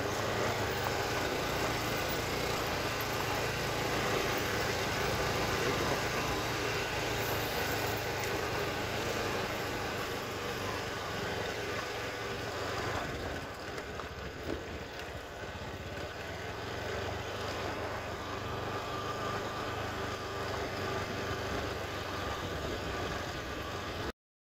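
Motorcycle riding slowly along a dirt track: a steady engine sound mixed with wind and road noise on the microphone, cutting off abruptly near the end.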